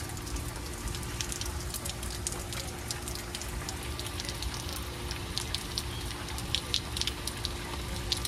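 Heavy thunderstorm rain falling steadily, with many sharp taps of drops striking close by that come thicker in the second half.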